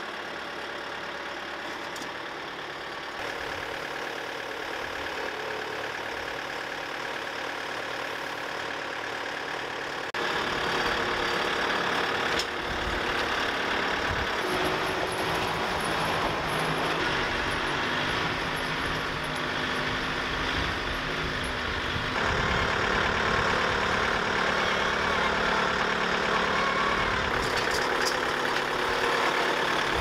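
Compact diesel tractor engine running, idling and then working, louder after abrupt changes about a third and two-thirds of the way through.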